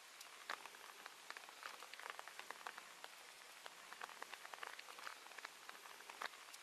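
Faint rain pattering: a steady hiss with many irregular light ticks of drops.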